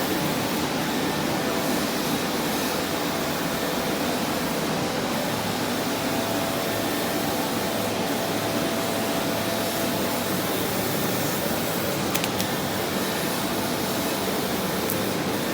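Steady rushing of air from a CNC laser machine's fans, with a faint steady hum underneath and a few faint ticks late on.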